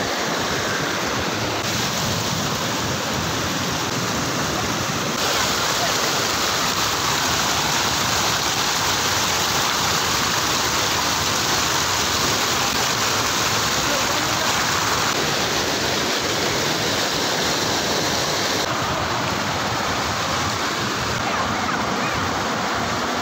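Steady rush of water spilling over a low concrete weir and running through the shallows below it.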